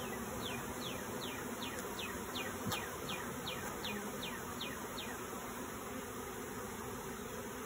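A honeybee swarm buzzing steadily as it settles onto and into a five-frame nuc box. Over the first five seconds a run of quick falling whistle-like notes repeats about three times a second.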